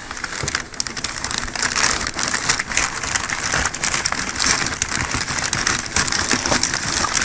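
Packaging rustling and crinkling as a furnace inducer motor is pulled out of its box: a dense, steady crackle full of small clicks.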